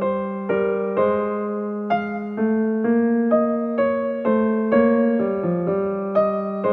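Background music: a slow, gentle electric piano melody, about two notes a second over a held bass note.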